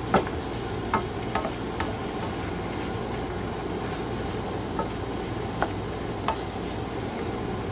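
Beef strips sizzling steadily in a stainless steel skillet while a wooden spoon stirs them, knocking against the pan now and then with short clicks.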